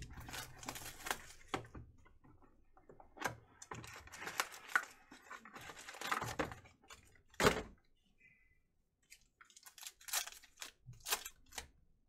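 Foil wrappers of trading-card packs crinkling and rustling in irregular bursts as the packs are pulled from a freshly opened box and handled. One sharp knock about seven and a half seconds in is the loudest sound.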